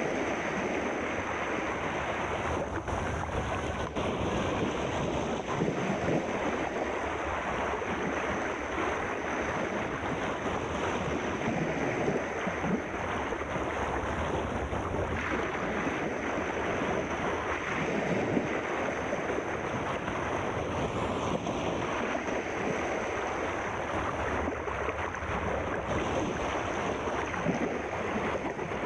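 Steady rushing water: an even wash of noise with no single wave or splash standing out, and a faint thin high whine above it.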